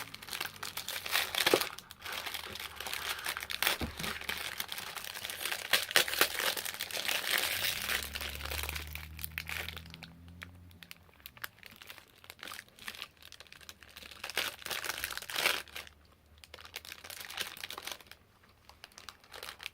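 Plastic snack wrapper crinkling and tearing as a packet of stroopwafels is opened and handled, dense crackling for the first half, then thinning to scattered crinkles.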